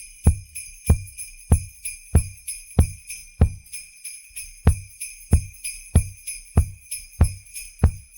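Sleigh bells shaking steadily over a kick drum hitting on every beat, about one and a half beats a second: an isolated drum and sleigh-bell stem separated from a pop song's mix.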